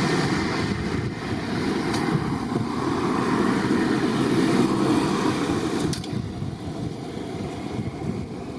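Jet engines of an Airbus A320-family airliner taxiing on the runway, a steady rumble that eases somewhat about six seconds in.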